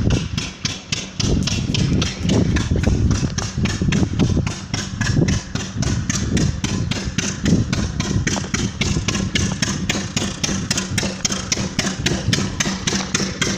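Water pump drawing water up from below, running with a loud, fast, regular knocking of about five beats a second over a steady low hum.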